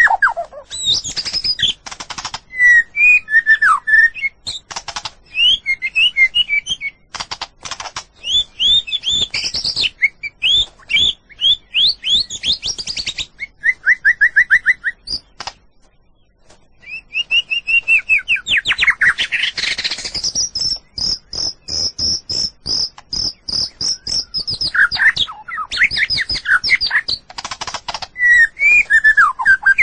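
White-rumped shama singing a long, varied song of loud whistles, slurred notes and rapid chattering phrases. There is a short pause just past the middle, then a fast high trill held for about four seconds.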